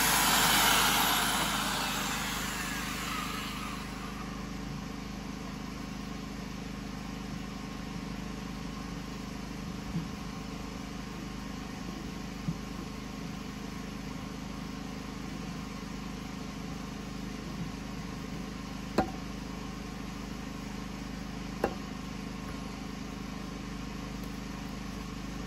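A handheld electric power tool working a log, then switched off and winding down over about three seconds. After that a steady engine-like hum carries on, with a few sharp knocks.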